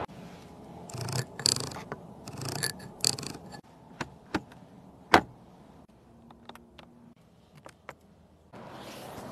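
Handling noises in a BMW M4 Competition's cabin: rubbing for a few seconds, then a series of sharp clicks as the gear selector and dashboard buttons are worked.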